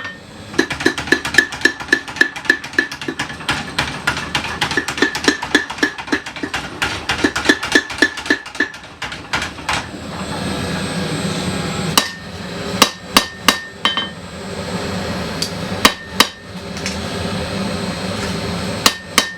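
Vintage 25 kg Sakamoto belt-driven power hammer striking a hot steel san-mai knife blade in a fast run of blows, about five a second, with a ringing note, for about nine seconds. Then come a few separate blows with pauses between them, where a steady mechanical hum is heard.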